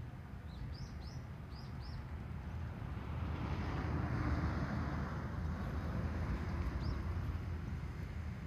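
A car drives past, its road noise swelling to a peak about four seconds in and then fading, over a steady low rumble. Several short bird chirps come in the first two seconds and once more near seven seconds.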